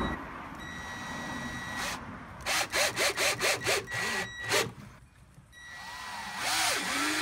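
Cordless drill driving screws into marine plywood: the motor whines in short runs, starting and stopping as the screws grind into the wood.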